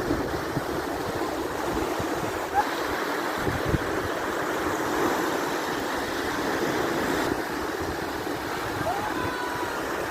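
Sea surf washing steadily onto a beach, a continuous rush of breaking waves.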